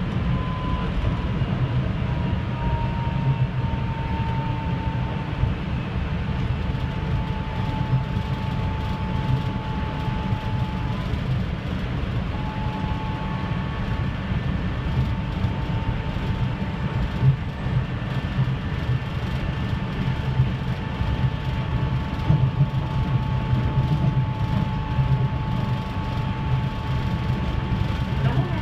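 Kanazawa Seaside Line rubber-tyred automated guideway train running along its elevated guideway, heard from inside the car. A steady low rumble from the running gear, with a thin electric drive whine over it that dips slightly at first and then holds steady.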